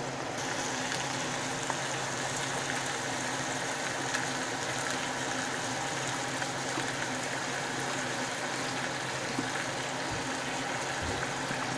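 Steady hiss of pots cooking on a stovetop, with a low hum underneath.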